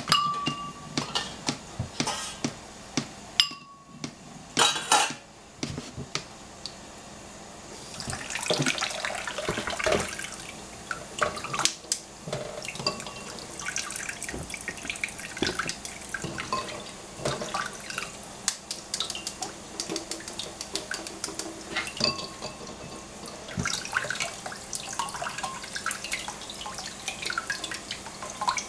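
Sharp clinks and knocks of a spoon and dishes for the first six seconds, then kitchen tap water running into the sink with more clinks, while a boiled egg is peeled under cold running water.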